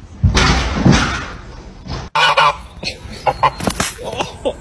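Geese honking in short repeated calls after a sudden cut, with scuffling. Before the cut, about two seconds of loud, even noise.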